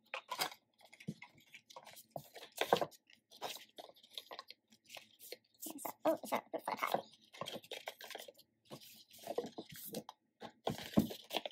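Paper cards and cardboard album packaging being handled: irregular rustling, sliding and light taps of cards, a CD and a cardboard sleeve, with brief pauses between.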